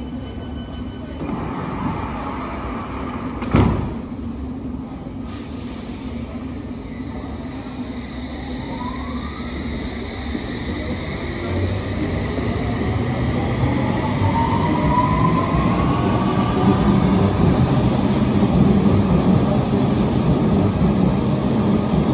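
London Underground S7 Stock train departing: a single sharp knock a few seconds in as its doors shut, then its traction motors whine upward in pitch as it accelerates away, with the running rumble of the carriages growing louder.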